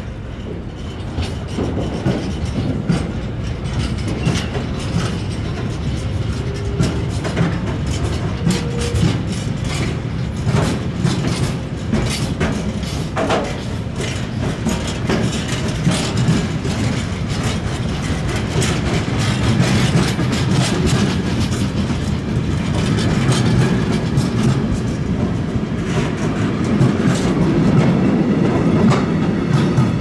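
Mixed freight train's wagons rolling past close by: a steady low rumble of steel wheels on rail, with a rapid run of clicks and clatter as the wheelsets cross rail joints, getting slightly louder toward the end.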